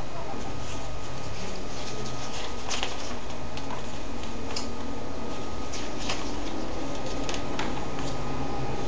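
Paper comic book pages being handled and turned: a few soft, scattered clicks and rustles over a steady background hum.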